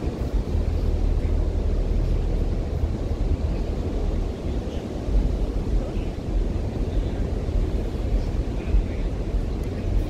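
Ocean surf on a beach under a steady low rumble that gets louder as it begins and holds.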